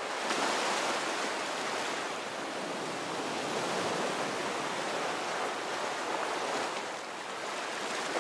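Steady rushing water noise with no pitch or rhythm.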